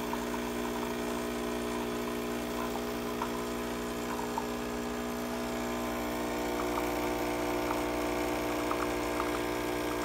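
De'Longhi EC702 espresso machine's 15-bar pump running with a steady buzzing hum as it forces water through the ground coffee, pulling an espresso shot into the cup.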